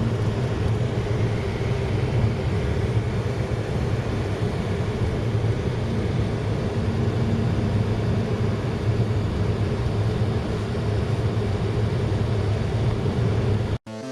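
Steady drone of a car's engine and road noise, with a constant low hum, as heard while the car is running; it cuts off suddenly near the end.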